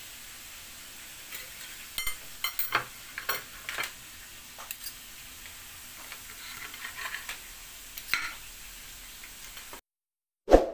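Knife and fork clicking and scraping on a ceramic plate while cutting crispy batter-fried squid, with the crunchy coating crackling under the blade. Near the end the sound cuts out, then one short, loud sound effect from a subscribe-button animation.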